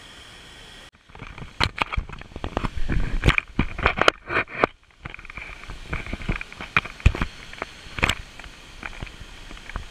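A steady rushing hiss cuts off about a second in. Then comes handling noise on the action camera: irregular knocks, clicks, scrapes and crackles as it is gripped and brushed against bushes. These are dense for a few seconds, then sparser.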